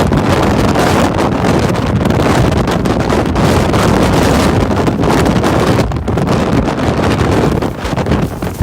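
Hurricane-force wind blowing hard across the microphone: a loud, continuous rush that surges in gusts and eases briefly about six and again about eight seconds in.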